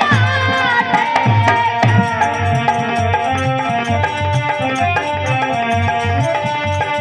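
Instrumental Indian folk music: a hand drum beats a steady rhythm under a melody of held notes, with no singing.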